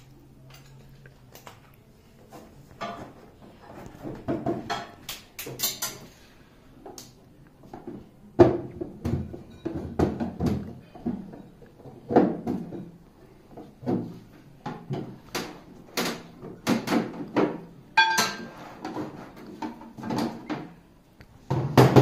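Irregular plastic knocks, clicks and scrapes as the plastic cabinet cover of an Aquasure Xpert water purifier is pried open and taken off with a screwdriver, with one short squeak late on.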